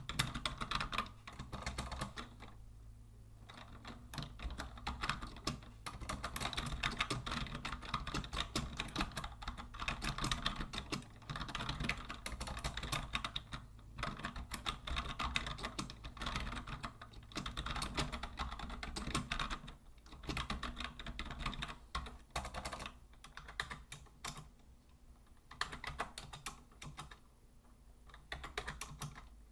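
Continuous typing on a vintage Logitech Deluxe 104 wired rubber-dome keyboard: quick runs of key clicks and clacks, broken by several brief pauses, over a faint steady low hum.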